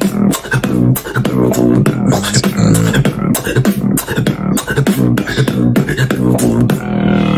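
Beatboxing: a fast stream of mouth-made kicks, clicks and snares over a buzzing bass held long under them.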